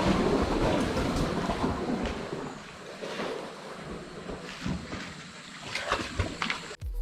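Wind buffeting the microphone, a rough, uneven rumble that eases after about two seconds, with a few faint knocks later on.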